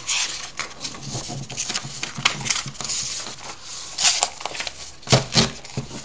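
Sheets of printed paper rustling and crinkling as pages of a packet are flipped over. Two louder dull thumps come about five seconds in.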